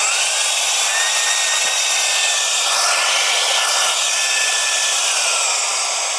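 Reikiya HV-C11 cordless handheld vacuum-blower's motor running steadily, a high whine over rushing air, drawing air in through a blower nozzle that was fitted to the intake side by mistake. Near the end the whine drops slightly in pitch and level.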